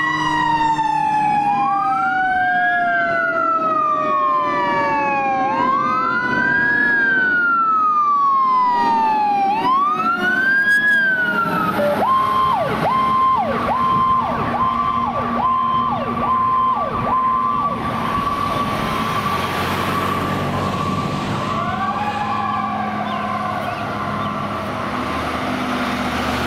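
Fire apparatus siren wailing in repeated rising-and-falling sweeps, with a second siren winding slowly down in pitch underneath. About twelve seconds in, it changes to a steady high tone broken by quick short dips, then holds the tone, and wails again near the end.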